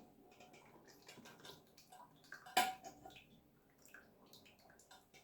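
Faint kitchen handling sounds: scattered light clicks and knocks, with one sharper clink about two and a half seconds in.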